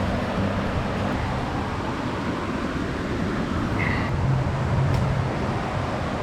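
Waterfall on a mountain creek rushing steadily, a loud, even wash of water noise. Guitar music fades out in the first second.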